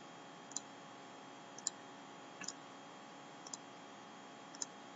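Computer mouse clicking about five times, single faint clicks roughly a second apart, as faces are selected, over a low steady hum.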